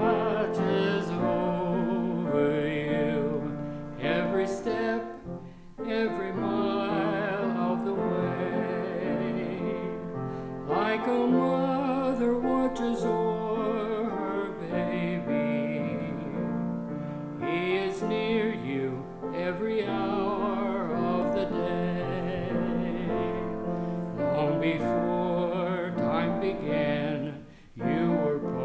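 A man singing a slow gospel solo with vibrato over piano accompaniment, with short breaks between phrases.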